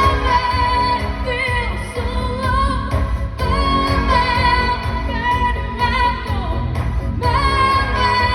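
A woman singing a song over instrumental accompaniment, holding long notes that glide between pitches.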